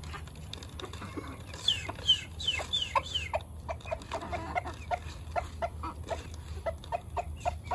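Chickens clucking as they crowd in to feed. There are a few high falling calls about two seconds in, then a quick run of short clucks.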